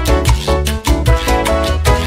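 Background music with a quick, steady beat.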